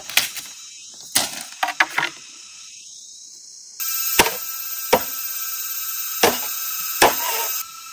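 Sharp chopping knocks, a blade striking wood: a few quick strikes early, then four heavier blows about a second apart. Under the later blows a steady hiss starts suddenly and cuts off near the end.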